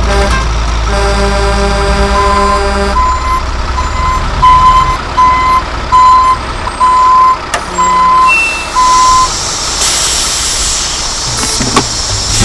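Dump truck backing up: its diesel engine runs under a steady reversing alarm beeping about one and a half times a second. The beeping stops about nine seconds in and a hiss follows near the end.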